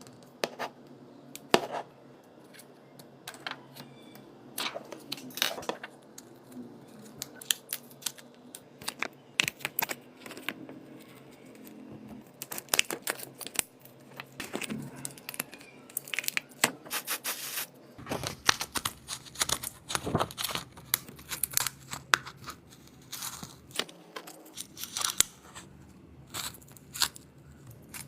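Hands and small tools working on a smartphone during a repair: irregular clicks, taps and scraping, growing busier about two-thirds of the way through.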